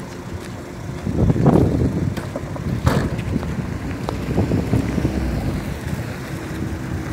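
Wind buffeting the microphone: a low rumble that gusts, strongest about a second and a half in, with a short sharp knock about three seconds in.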